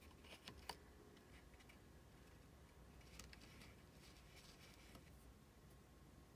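Near silence: room tone with a few faint clicks of small die-cast metal and plastic parts being picked up and handled.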